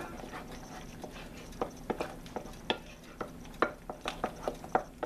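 Thick sour cream and cream cheese being stirred together in a ceramic bowl: soft stirring with irregular sharp knocks of the utensil against the bowl, two or three a second from about a second and a half in.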